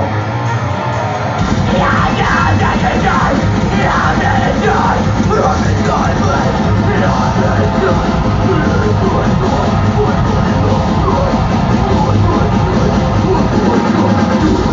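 Loud rock music with yelled vocals, the voice most prominent in roughly the first half.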